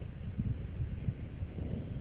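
Wind buffeting the microphone in irregular low gusts.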